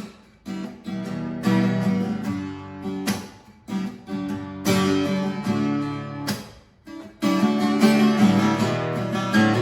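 Acoustic guitar strumming the intro of a song, a short three-chord progression that sets the rhythm, with brief breaks between phrases and fuller, louder playing in the last couple of seconds.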